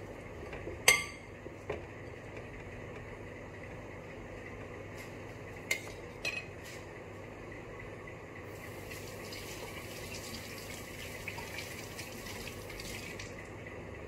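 A metal spoon clinks sharply against a glass bowl about a second in, with a few lighter clinks later. Then a kitchen tap runs for about four and a half seconds and is shut off.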